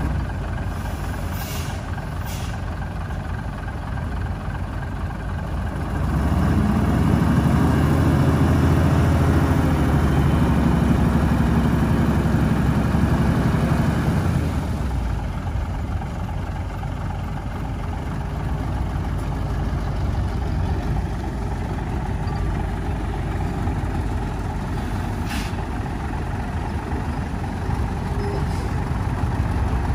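Heavy diesel earthmoving machinery, a bulldozer and dump truck, running steadily. From about six seconds in, one engine works harder and louder for about eight seconds, then eases back. A few brief sharp high hisses or clicks come early and again near the end.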